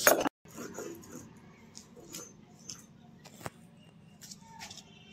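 Ginger and garlic being ground on a sil-batta, stone rolled on stone, which cuts off sharply just after the start. Afterwards only faint scattered taps and a short faint falling tone about four and a half seconds in.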